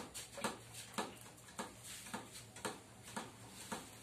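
A paintbrush stippling resin into fibreglass mat on a mould: short dabbing taps in an even rhythm, about two a second.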